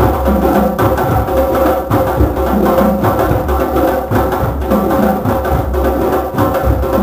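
A drum circle playing hand drums together in a steady, dense ensemble rhythm, deep bass strokes under sharper slaps, with a steady held note underneath.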